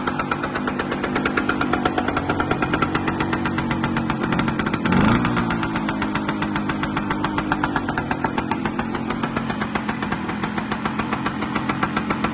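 1960 Lambretta L1 scooter's single-cylinder two-stroke engine idling steadily, with a brief rise and fall in revs about five seconds in.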